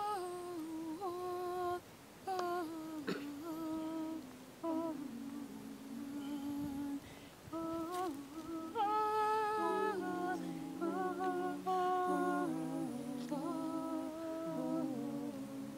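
A woman humming a slow hymn tune in long held notes with short breaks; from about nine seconds in, a second, lower voice hums along in harmony.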